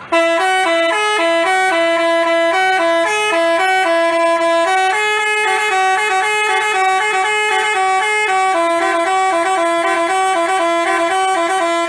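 Basuri telolet bus horn playing a melody: a loud run of quick horn notes stepping between a few pitches, which starts abruptly and cuts off at the end.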